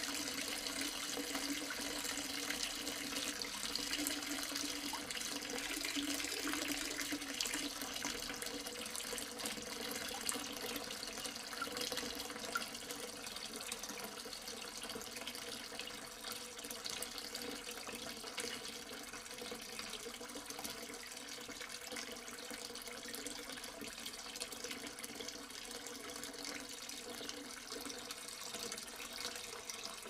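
Small tabletop fountain running: water trickling and splashing steadily from its tiered spouts into the pebble-filled basin below, a little quieter in the second half.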